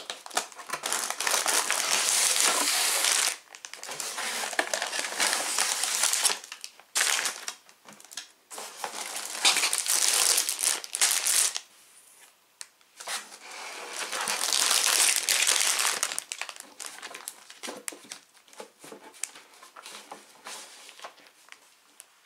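Sealed plastic bags of LEGO parts crinkling and rustling as they are pulled from a cardboard box and laid on a table. The rustling comes in several long stretches with short pauses, then thins to lighter scattered clicks and rustles near the end.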